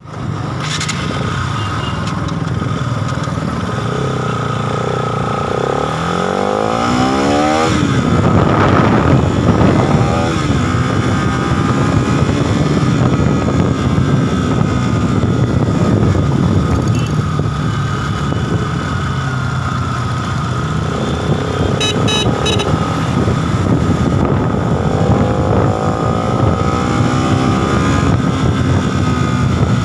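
Bajaj Pulsar NS200's single-cylinder engine running under way, its pitch climbing as it accelerates, dropping suddenly at a gear change about eight seconds in, and climbing again near the end.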